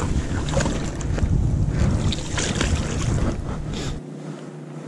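Wind buffeting the microphone with a heavy low rumble, with a few short splashes from a hooked trout thrashing in the shallows at the shore. The rumble drops away abruptly about four seconds in.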